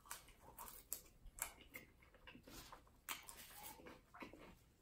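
Close-miked chewing and lip smacking, a string of faint, irregular wet clicks as a mouthful of french fries is eaten.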